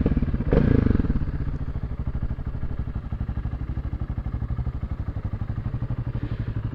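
Honda CB125TD Super Dream's small parallel-twin engine running steadily with a rapid, even exhaust pulse through a loud exhaust.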